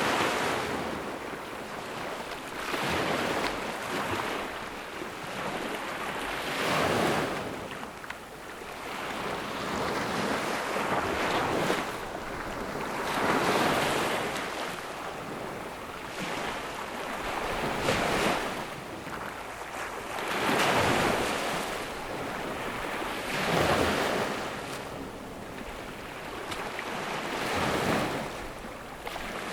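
Ocean waves breaking on a beach, a steady wash of surf that swells with each wave about every three to four seconds.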